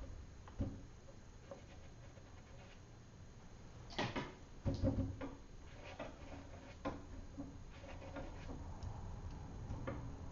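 Quiet scattered taps and knocks from handling watercolour painting tools at a board, the loudest knocks coming about four to five seconds in.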